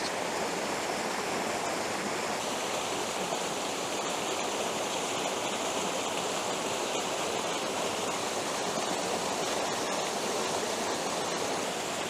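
Small waterfall in a woodland brook, water cascading over mossy rocks into a pool: a steady rushing din of falling water.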